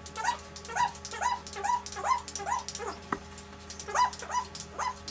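A dog yipping and whimpering in short, pitched cries, about two or three a second, with a brief pause midway.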